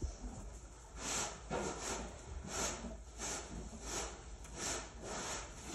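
Hand-milking a draft mare: squirts of milk hissing into a small plastic container, one after another at about two a second.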